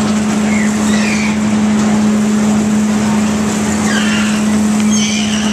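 Rock-N-Roll carnival ride running: a steady machine hum under a dense mechanical rumble, with brief high squeals now and then.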